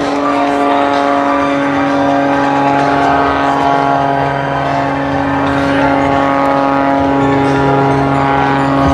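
Oracle Challenger III aerobatic biplane's piston engine and propeller at high power, a steady drone whose pitch holds constant as the plane hangs nose-up on its propeller in a hover.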